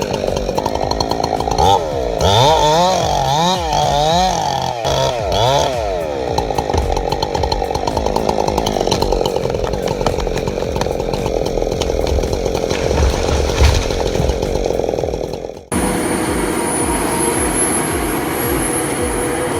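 Chainsaw cutting into a tree trunk: the engine revs up and down in quick swings for the first few seconds, then runs steadily at high speed in the cut. Near the end it cuts off abruptly to a different steady machine sound with a thin high whine.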